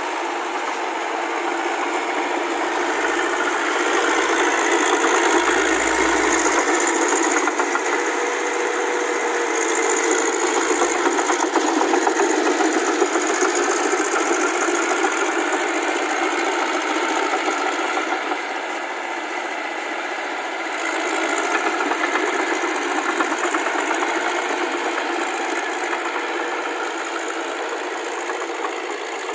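Diesel engine of a Massey Ferguson half-track tractor running steadily under load as it pulls a rotary tiller through the mud of a flooded rice paddy.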